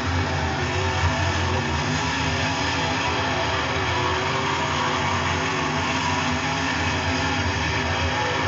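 Dirt-track Super Late Model race cars running at racing speed, their V8 engines making a steady, dense drone with tones that waver up and down as the cars go around the track.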